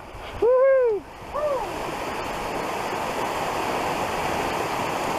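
Steady rushing of a mountain waterfall or stream beneath the headwall. Near the start come two short pitched calls that rise then fall, the first one loud and longer, the second short.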